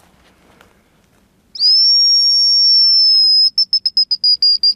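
Hazel grouse decoy whistle blown to imitate the bird's call: one long, high, pure whistle that rises briefly and holds for about two seconds, then breaks into a rapid run of short notes. It is a lure call meant to draw a hazel grouse in.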